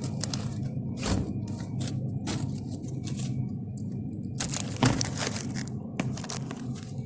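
Irregular rustling and crinkling of something being handled, over a steady low hum.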